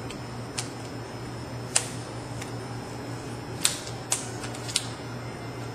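About half a dozen sharp clicks and taps at irregular intervals as a rubber U-cup seal is worked by hand onto a steel rotary manifold spool, over a steady low hum.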